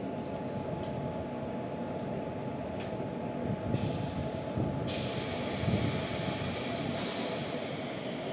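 Electric locomotive standing coupled to a coach with its pantograph raised, its auxiliary machinery running in a steady hum. A few light metallic ticks come over the hum, then short bursts of hiss midway and near the end.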